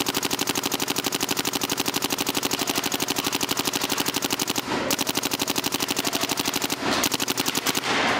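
Planet Eclipse GSL electronic paintball marker firing in rapid, very even strings of about twelve shots a second, its rate capped at 12.3 balls per second. The fire breaks off briefly twice, near the middle and again about a second later, then stops near the end.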